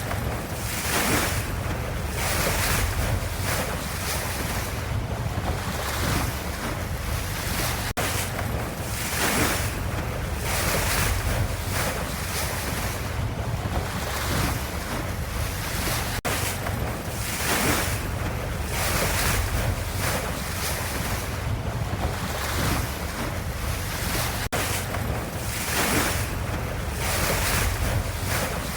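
Ocean waves washing in a steady surf: a hiss that swells and falls every second or two over a low rumble. The same few-second stretch repeats about every eight seconds as a seamless loop.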